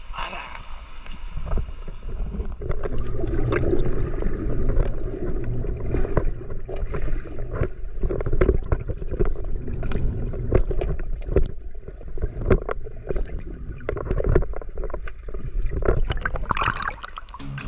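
River water splashing and sloshing in many quick, irregular strokes.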